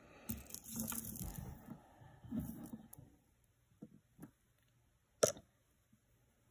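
Rustling and handling noises from hands moving cloth and jewelry on a fabric-covered table, lasting about three seconds. Then come a few light clicks and one sharper click about five seconds in.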